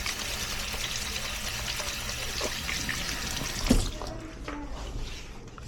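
Water running from a tap into a sink, easing off a little under four seconds in, with a sharp knock at about the same moment.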